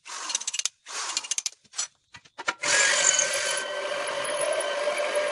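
Corded electric drill cutting into a steel plate: two short bursts and a few clicks, then from about halfway in it runs steadily with a constant whine as the bit cuts.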